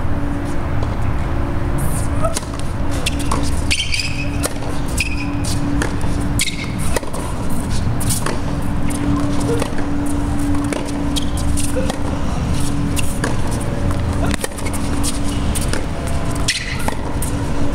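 Tennis ball strikes off racket strings and ball bounces on a hard court during a rally: a run of sharp pops about every half second to second, over a steady low rumble and hum.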